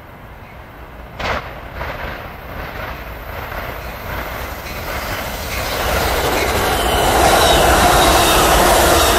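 Amtrak passenger train of double-deck cars approaching and passing close by, its rumble and wheel noise on the rails growing steadily louder and loudest over the last two seconds as the cars go by. Two brief sharp noises come about one and two seconds in.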